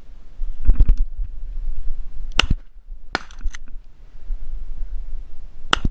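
Shotgun shots at flushing quail: sharp reports about two and a half seconds in, a pair a little after three seconds, and another near the end. A burst of low thumps about a second in is the loudest thing, over a steady low rumble.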